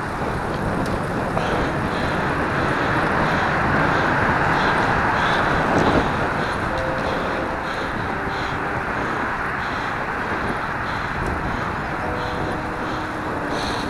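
Steady rushing of wind on the microphone mixed with tyre and road noise from a road bike in motion, swelling for a couple of seconds around the middle.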